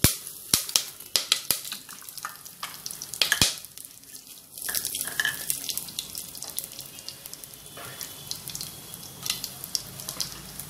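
Whole spices (bay leaves, green cardamom, cinnamon, black cardamom) going into hot oil with cumin seeds in a stainless steel pot, sizzling as they temper. Several sharp clicks and pops in the first few seconds, then a steadier, louder sizzle from about four and a half seconds in.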